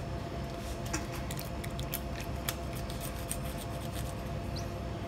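Knife cutting along the edge of a turtle's shell on a plastic cutting board, with scattered small clicks, scrapes and wet squishes as the shell is worked off. A steady hum runs underneath.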